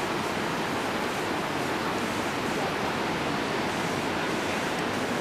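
Steady wash of ocean surf breaking on the shore.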